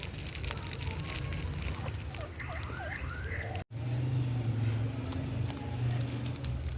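Indian ringneck parrot giving a few quick whistled chirps that swoop up and down in pitch, about halfway through, over a steady low background hum.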